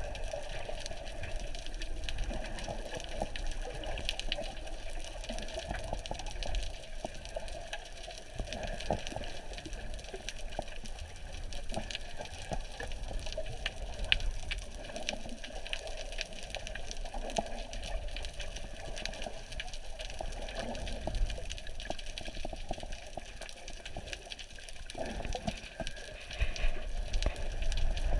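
Underwater sea ambience in shallow water just below the surface: a steady, muffled rush of water with many small clicks and crackles, growing louder near the end.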